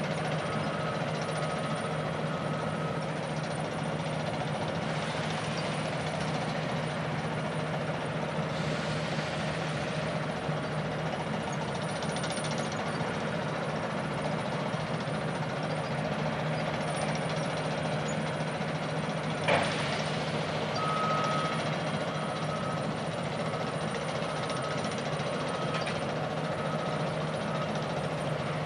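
Heavy mining machinery and trucks running steadily with a low hum, while a truck's reversing alarm beeps at the start and again about two-thirds of the way through. A single sharp knock sounds just before the second run of beeps.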